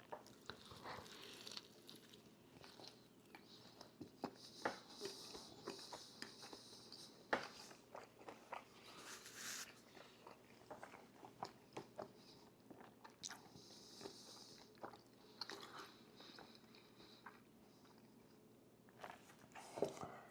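Close-miked eating: a person biting, crunching and chewing food, with many small sharp crunches and clicks.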